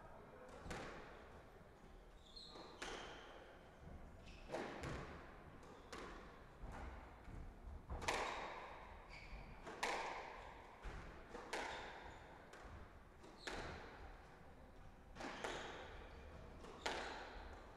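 Squash rally: the ball cracking off rackets and the court walls about every one to two seconds, each hit echoing in the court, with short squeaks of court shoes on the wooden floor.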